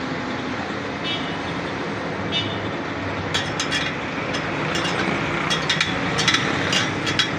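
Metal spokes clinking against one another and the rim as they are threaded into a Honda CD 70 motorcycle wheel. From about three seconds in there is a quick, irregular run of light metallic clicks, over a steady low rumble.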